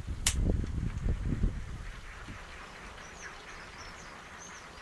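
Wind gusting on the microphone for about the first two seconds, with one sharp click early on, then settling to a faint outdoor hiss with a few short, high bird chirps near the end.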